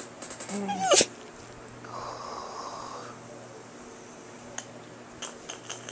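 Long-haired dachshund huffing breaths close to the microphone, with a brief squeaky vocal sound and a sharp tap about a second in.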